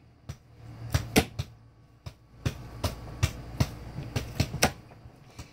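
A series of sharp taps or knocks, scattered at first and then falling into a fairly even beat of about three a second through the middle, over a low steady hum.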